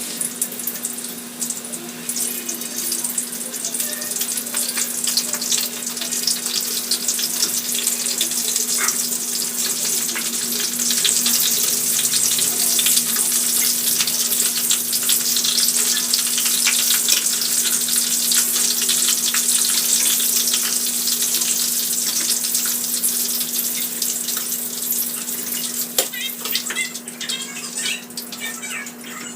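Food frying in hot oil in a pan: a steady sizzle full of fine crackles. A steady low hum runs underneath, and a few light utensil clinks come near the end.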